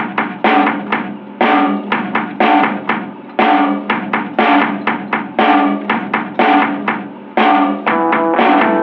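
Music: a drum-led instrumental with a steady beat of about two strokes a second and pitched notes over it, building toward a fuller band near the end.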